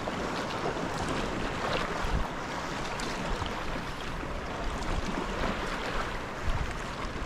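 Choppy sea water lapping and splashing against a sea kayak's hull, with scattered small splashes, and wind rumbling on the microphone.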